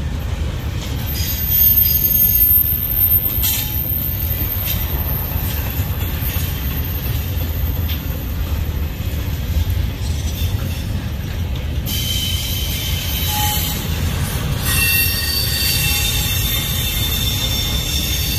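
Double-stack intermodal container cars of a freight train rolling past with a steady heavy rumble of wheels on rail. Steady high-pitched wheel squeal joins in over the last third.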